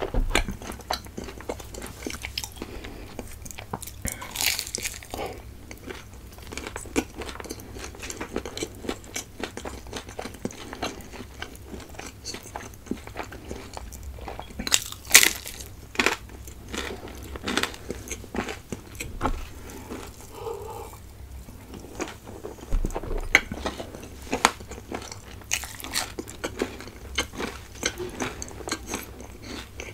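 Close-miked eating of a crispy fried samosa: irregular crunching bites and chewing. One especially loud crunch comes about halfway through.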